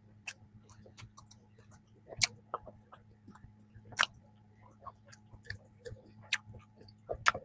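Close-miked chewing of a soft peanut cream bun: irregular wet mouth clicks and smacks, a few louder ones about two, four and seven seconds in, over a faint steady hum.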